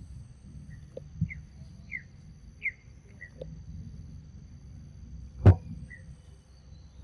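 Small bird giving short, slightly falling chirps, about one every half second for the first few seconds and once more near the end, over a steady high-pitched insect drone. A single loud sharp smack comes about five and a half seconds in.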